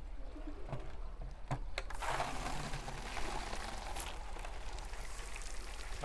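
Water rushing from the larger water line's open brass fitting into a 5-gallon plastic water jug, a steady hiss and splash that comes on about two seconds in as the valve is opened. A few light clicks come before it.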